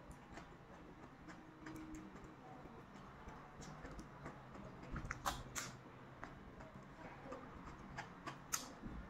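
Faint eating sounds of someone chewing cucumber slices, with scattered small clicks and a few sharper crackles about five seconds in and again near the end.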